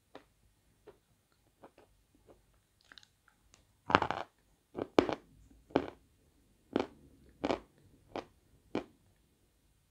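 Lumps of natural chalk being bitten and chewed: a few faint clicks at first, then a run of sharp, loud crunches from about four seconds in, roughly one every half-second to second.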